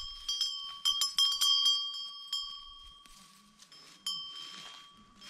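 Livestock bell on a browsing goat clanking irregularly, a quick cluster of strikes in the first two seconds and another a little after four seconds, each leaving a metallic ring that fades.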